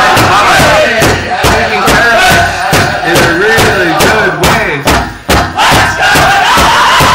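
Powwow drum group: several voices singing a high-pitched chant together over a large drum struck in a fast, steady beat of about three strokes a second, loud and close.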